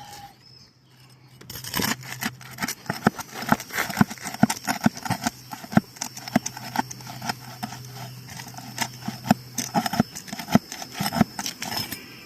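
Asphalt roof shingles being worked by hand during a shingle repair test: a fast, irregular run of sharp clicks and knocks, several a second, easing off near the end.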